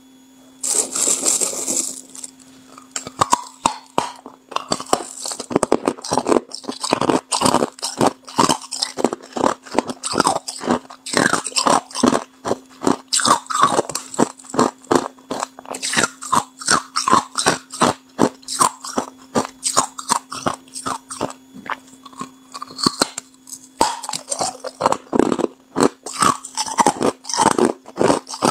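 Hard clear ice being bitten and chewed close to the microphone: a quick, continuous run of loud, crisp crunches, about two to three a second. A steady low hum runs underneath, and there is a brief rustling burst near the start.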